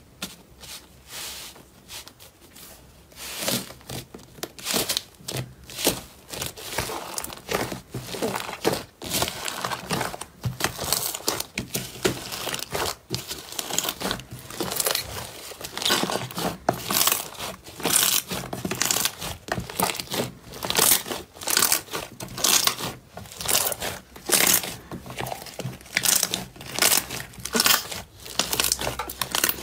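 Thick blue slime in a glass dish, topped with paper labels, being pressed and kneaded by hand: crinkling paper and a quick run of sharp crackling pops and squishes from the slime. It is sparse for the first few seconds, then comes thick and fast.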